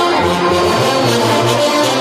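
Loud brass band music with a pulsing bass line.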